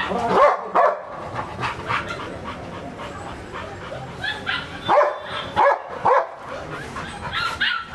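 A dog barking repeatedly in short, loud barks, a couple early on and a cluster of several from about five seconds in to near the end.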